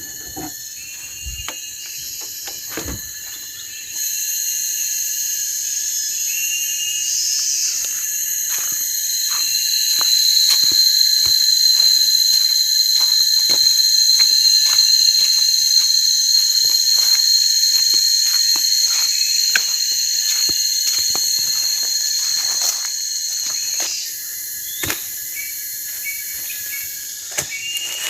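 Loud, steady night chorus of insects, crickets and the like, trilling in several high-pitched layers. A piercing high tone joins about ten seconds in and drops out a few seconds before the end, over scattered faint clicks.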